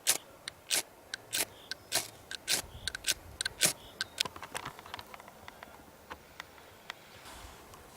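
Irregular sharp clicks and light knocks, coming thick and fast for the first four seconds or so and then thinning out to a few.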